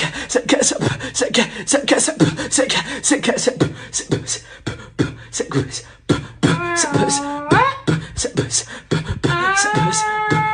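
Rhythmic vocal music: fast, sharp percussive beats, joined from about six and a half seconds in by a held voice that slides up and down in pitch.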